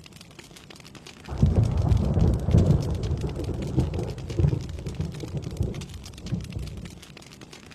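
Steady rain falling, with a roll of thunder that breaks in suddenly about a second in, rumbles for several seconds and fades away near the end.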